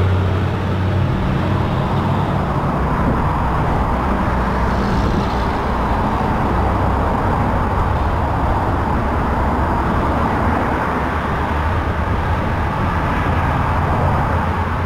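Busy freeway traffic: cars and a concrete mixer truck driving by close at hand, with a low engine drone, heaviest about the first second, over constant tyre and road noise.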